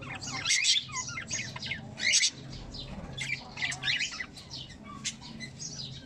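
Cockatiels chirping and squawking: many short, high calls in quick succession, with a louder burst about two seconds in.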